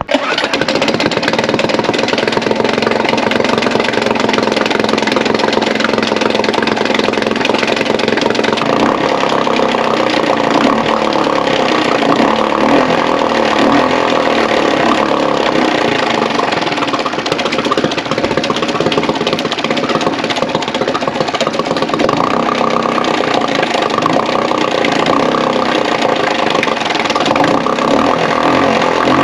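Suzuki DF 2.5 single-cylinder four-stroke outboard running steadily with its lower unit in a bucket of water, on a carburettor newly fitted with larger main and pilot jets. Its note shifts about 9 seconds in and again near 22 seconds.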